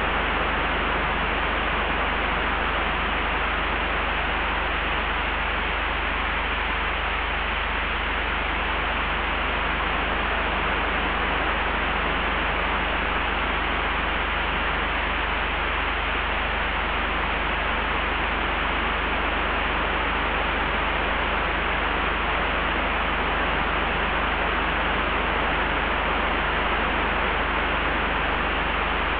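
Layered wind ambience: an even, steady rushing hiss over a constant deep low rumble, with no gusts rising or falling.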